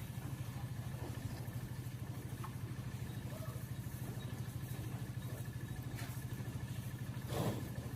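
A small motor running steadily, a low drone with a fast even pulse, with a brief louder sound about seven and a half seconds in.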